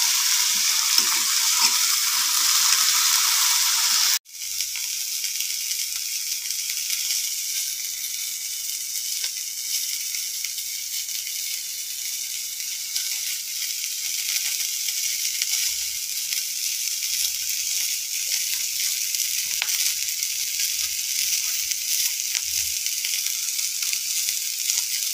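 Crabs frying in oil in a wok, a steady sizzle. The sound cuts out for an instant about four seconds in and then goes on a little quieter.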